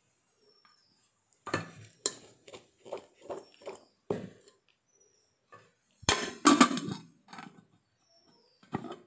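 Aluminium rice pot and its aluminium lid clinking and clattering as they are handled. A run of knocks comes in the first half, a louder burst of clatter a little past the middle, and one more knock near the end.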